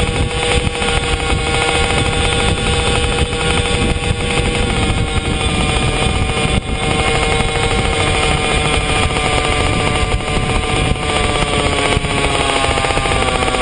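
Puch Maxi S moped's single-cylinder 49 cc two-stroke engine running under way at a steady cruising speed, holding a steady note, with wind rushing over the microphone.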